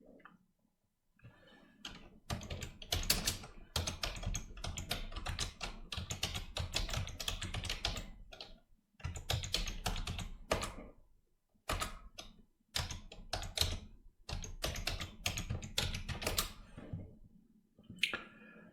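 Typing on a computer keyboard in quick runs of keystrokes, with brief pauses between the runs, as console commands are entered to connect to the controller.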